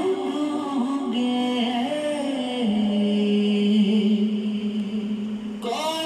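Background music: a voice singing a slow, drawn-out chant-like melody, sliding between notes and holding one long low note through the middle before moving higher near the end.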